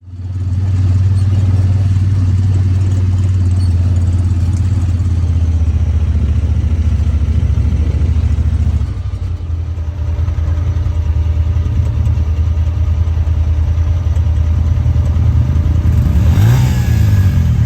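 Honda Talon side-by-side's engine running steadily with a strong low hum, dropping a little in level about nine seconds in, then revving up with a rising pitch near the end.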